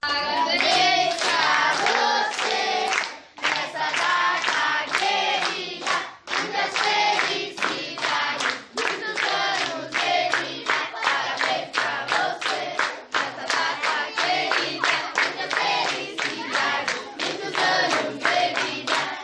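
A group of children and adults singing a birthday song together, clapping along in a steady beat of about two to three claps a second.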